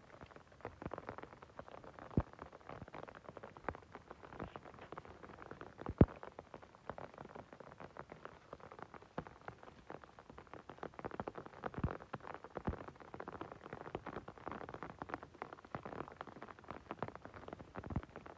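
Rustling and crackling of moss and lichen as mushrooms are plucked by a gloved hand and dropped into a wicker basket, with a few sharp knocks, the loudest about six seconds in.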